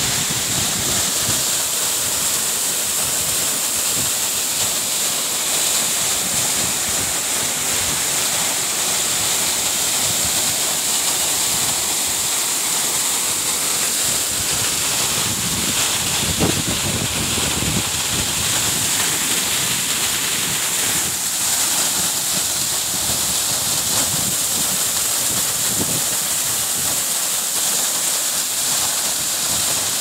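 Waterfall crashing down a rock face close to the microphone: a loud, steady rush of falling water, with irregular low buffeting on the microphone from wind or spray.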